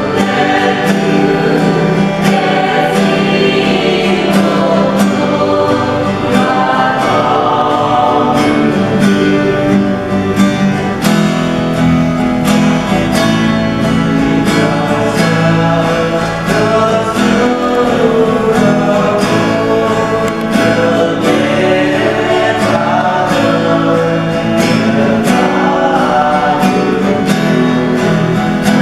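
A group of voices singing a worship song together over strummed guitar, with a steady beat.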